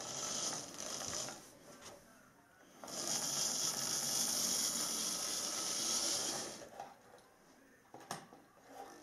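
Model class 47 diesel locomotive running along the track, the whirr of its small electric motor and the rattle of its wheels on the rails. The sound grows loud about three seconds in as it passes close by, then fades after about three and a half seconds.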